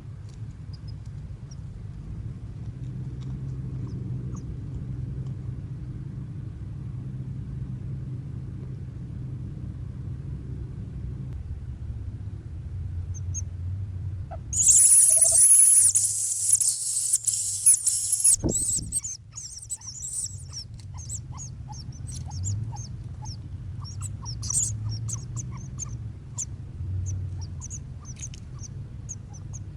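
Outdoor ambience with a steady low rumble; about halfway through, a loud high-pitched hiss lasting about four seconds, followed by scattered short, high bird chirps.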